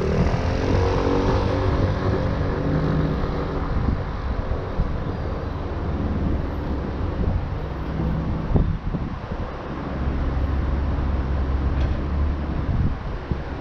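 Road traffic heard from a vehicle stopped at a junction: a steady low engine rumble, with another vehicle's engine passing and fading in the first couple of seconds.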